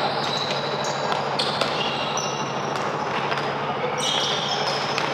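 Basketball game play on an indoor court: a ball bouncing and shoes squeaking on the floor over the steady din of the gym, with short high squeaks coming and going.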